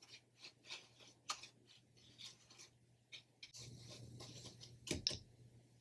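Faint rustling and scraping of dry bread crumbs as pieces of marinated fish are rolled in them on a plate, with scattered light ticks and a couple of sharper taps about five seconds in.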